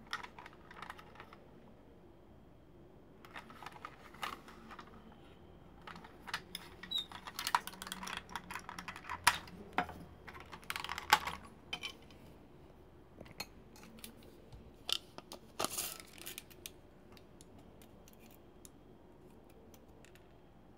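Hard plastic parts of an old Transformers Ultra Magnus toy clicking and clacking as they are handled, pulled apart and set down on a table: a run of sharp clicks and knocks, busiest in the middle, that stops about three-quarters of the way through.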